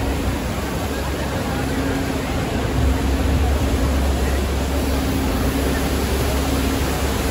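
Steady outdoor street noise with a constant low rumble underneath.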